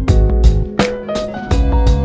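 Background music with a steady beat and plucked-string and bass notes.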